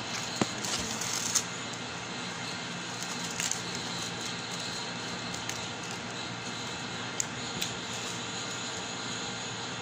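Steady background hiss and low hum, with a few faint clicks from hands handling things at a kitchen counter.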